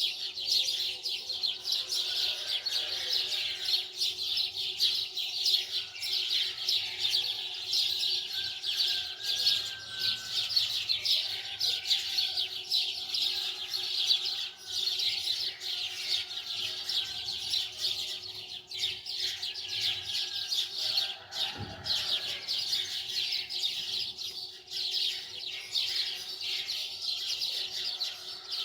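Many small birds chirping continuously in a dense chorus, with a faint steady hum beneath.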